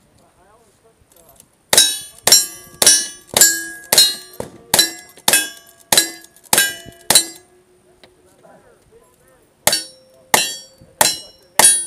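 A fast string of about eleven rifle shots, roughly two a second, each followed by the ring of a struck steel target. After a pause of about two seconds, another string of shots and steel rings begins.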